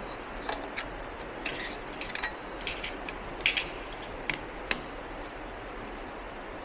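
Light metal clinks and taps, about a dozen sharp ones in the first five seconds, from parts of a baler being handled over a steady hiss.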